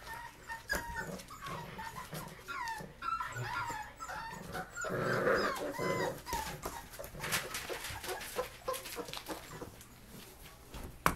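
Five-week-old puppies whimpering in many short, high-pitched cries that thin out after about six seconds, with scuffling and clicks as they are handled and a sharp click near the end.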